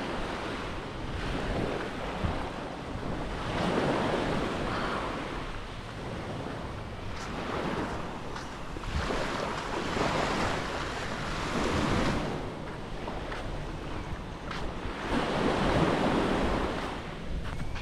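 Small waves washing onto a sandy beach, the surf noise swelling and falling back every few seconds, with wind buffeting the microphone underneath.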